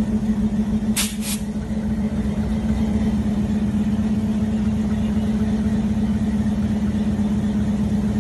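Diesel locomotive engine running with a steady low drone. About a second in there are two short bursts of hiss.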